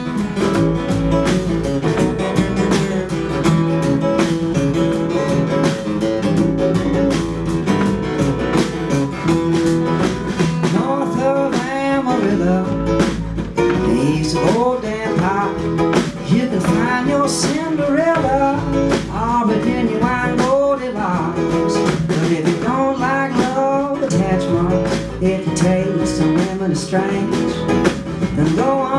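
Country band playing an instrumental break: strummed guitar and upright bass under a fiddle plucked like a mandolin. About eleven seconds in, a lead melody with sliding, bending notes comes in over the rhythm and runs for about ten seconds, returning near the end.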